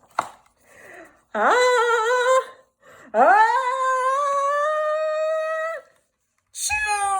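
A woman's voice making drawn-out, wordless vocal sounds. A short rising, wavering one comes first, then a longer one that slides up and is held for over two seconds, and near the end a third that starts high and glides down.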